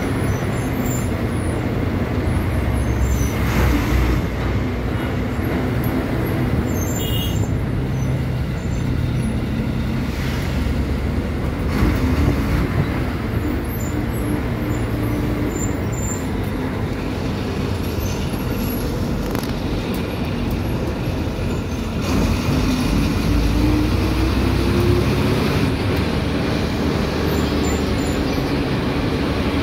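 Diesel engine of a KSRTC bus running under the driver's-cab floor, with steady road and cabin rumble. Past the middle the engine note climbs for a few seconds as it revs.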